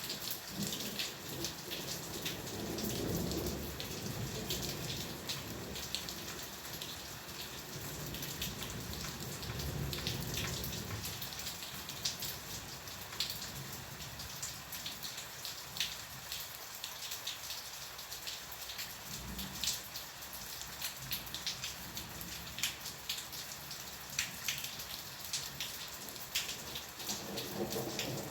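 Steady rain, with many close drops ticking sharply over an even hiss of falling water. Low rolls of thunder swell in and fade a few times, and a stronger roll begins near the end.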